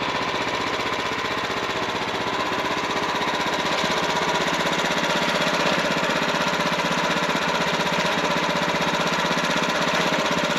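Wood-Mizer portable sawmill's engine running steadily at an even speed.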